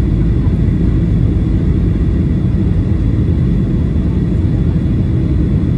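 Boeing 737-800 cabin noise: a steady deep rumble of engines and airflow, unchanging throughout.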